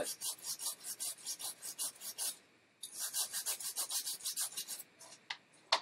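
Stiff cleaning brush scrubbing a water-damaged iPhone logic board in quick back-and-forth strokes, about five a second, in two runs with a short pause between, working off minor corrosion. Two sharp taps near the end.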